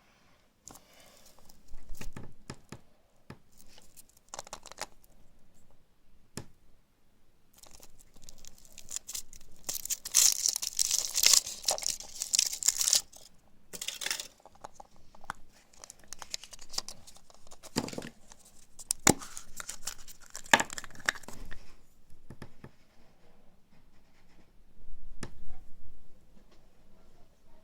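Foil wrapper of a Kinder Surprise chocolate egg being torn and crinkled, with scattered sharp clicks. The loudest, densest tearing comes about ten seconds in and lasts a few seconds.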